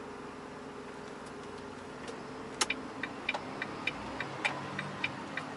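A truck's turn signal clicking steadily, about three clicks a second, starting about halfway through over the steady hum of the cab. The driver is signalling for a U-turn.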